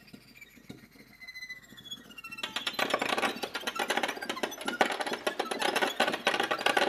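Free improvisation on a prepared piano with a second performer: faint falling glides, then, about two and a half seconds in, a sudden loud, dense rapid rattling and clattering texture that carries on to near the end.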